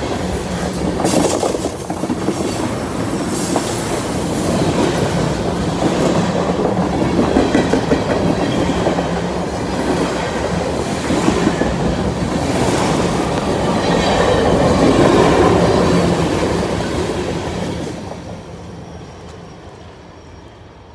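Freight train of tank cars rolling past close by, its steel wheels clattering over the rail joints, with a thin high wheel squeal through the first several seconds. The sound fades over the last few seconds as the end of the train moves away.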